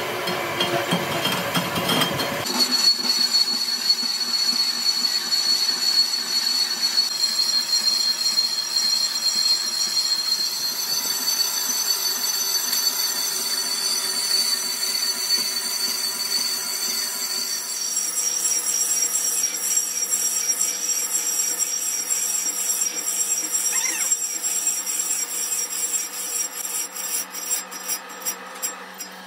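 Metal lathe turning a cast-iron truck brake drum: the cutting tool scrapes the inside of the drum with a steady high-pitched squeal over a grinding noise, its pitch shifting slightly every few seconds. Near the end the cut breaks into a run of rapid ticks.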